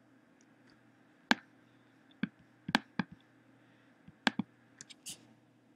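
Computer mouse clicking: about a dozen sharp clicks spaced unevenly, several in quick pairs, over a faint steady hum.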